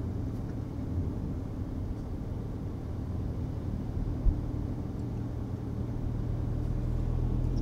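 Steady low rumble of a car's engine and tyres, heard from inside the cabin while driving along a paved road. A single short low thump comes about four seconds in.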